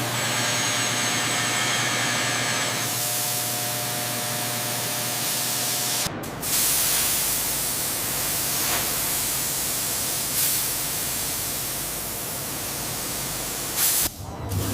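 Steady hissing noise, with faint high steady tones over it for the first few seconds; the sound changes abruptly about six seconds in and again near the end.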